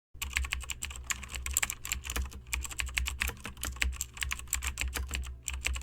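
Rapid, irregular clicking, many clicks a second in a typing-like pattern, over a steady low hum; it starts abruptly just after the beginning.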